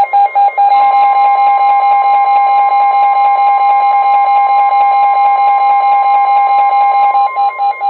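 Midland WR-120 weather radio's built-in alert alarm beeping loudly in rapid pulses. Underneath, the NOAA Weather Radio warning alarm tone, a steady 1050 Hz tone, comes in about a second in, signalling that a warning message is about to be broadcast. The radio's beeping stops near the end while the steady tone carries on.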